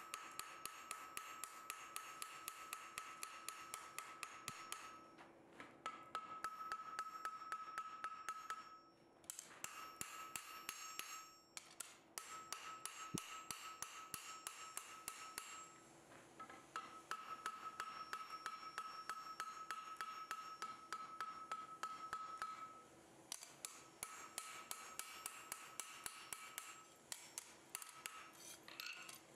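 Hand hammer striking a glowing steel ring on an anvil in runs of rapid, even blows, with the anvil ringing at each strike and a few short breaks between runs. The joint is being forge-welded and blended with a round-faced hammer.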